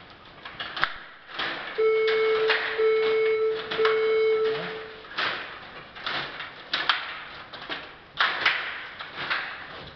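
Stiga table hockey game in play: sharp plastic clacks and knocks of the rods, player figures and puck. About two seconds in, an electronic tone sounds in three long beeps.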